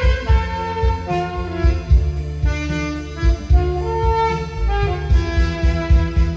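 Saxophone playing a melody of held notes that step up and down in pitch, over a keyboard backing with a steady drum beat.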